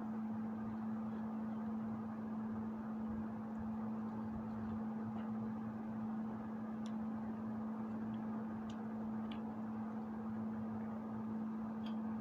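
A steady low hum over faint room noise, with a few faint scattered clicks.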